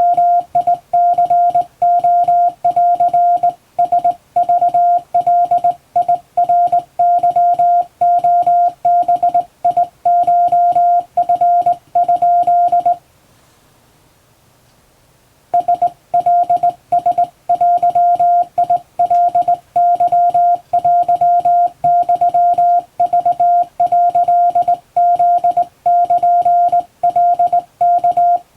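Morse code tone, about 700 Hz, keyed by hand on a vertical straight key, sending Japanese Wabun Morse code as a string of dots and dashes. It breaks off for about two and a half seconds near the middle, then keying resumes.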